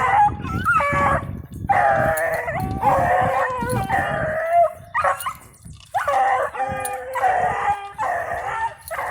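Several dogs howling together, long drawn-out calls that overlap and bend in pitch, coming in bouts of a second or two with brief pauses between.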